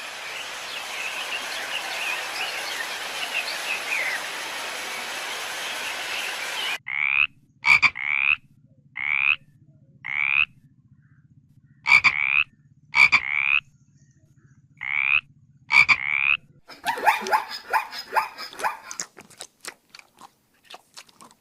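A steady hiss for the first few seconds, then a run of short, high, rising animal calls, several in quick pairs, followed near the end by rapid crunching and clicking of an animal eating.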